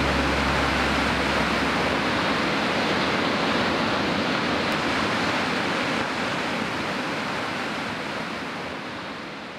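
A steady, even rushing noise, like distant surf or wind, that fades out over the last few seconds. A low note left over from the closing music dies away in the first second or two.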